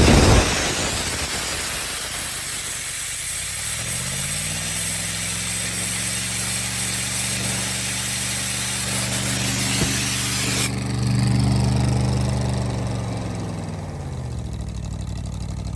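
Ford engine-driven air compressor running. A steady hiss of air cuts off abruptly about two-thirds of the way in, and the engine speed rises, holds, then settles back down near the end.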